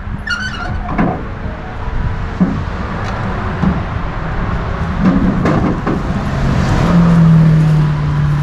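A motor vehicle's engine running with a steady low rumble, with a few short knocks and clanks over it. A low hum swells about three-quarters of the way through.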